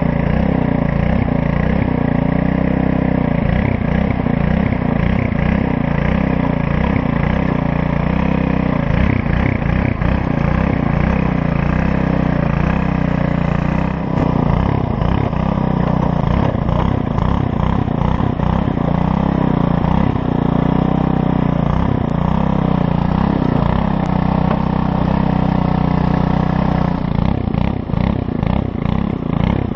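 Earthquake Versa front-tine tiller's 99cc four-stroke Viper engine running under load as its tines churn dry, sandy soil, the engine note wavering as the tines dig in.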